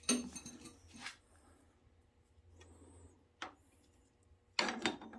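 Clinks and knocks of engine parts being handled and set down during an engine teardown. There is a brief clatter right at the start, a single knock partway through, and another clatter near the end.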